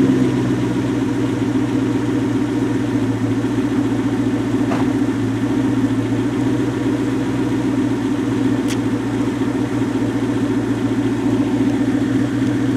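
2003 Mustang SVT Cobra's supercharged 4.6-litre V8 idling steadily through an aftermarket catted X-pipe mid-pipe and cat-back exhaust.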